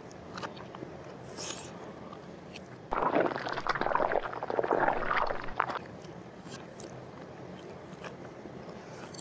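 Mouth noises of chewing a mouthful of spaghetti with meat sauce, loudest for about three seconds in the middle.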